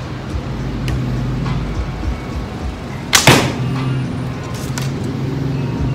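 A Manau rattan bow shooting one arrow about three seconds in: a single sharp snap of the string on release, with a short ringing tail. A steady low hum runs underneath.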